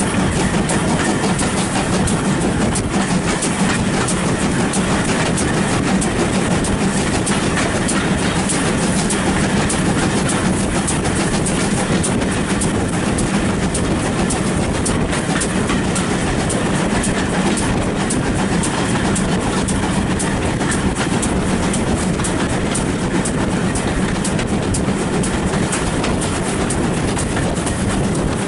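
Steam-hauled passenger train running steadily at speed, heard close behind the locomotive: a continuous rumble with rapid clatter of wheels over the rails.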